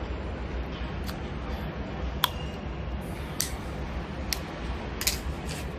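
A steady low hum with about half a dozen small, sharp clicks scattered through it, the sharpest about two seconds in.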